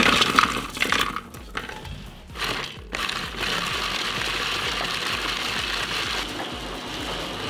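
Walnuts rattling as they are poured into a plastic hand-cranked food chopper. From about three seconds in the chopper is cranked steadily, its spinning blades whirring and clattering as they chop the nuts.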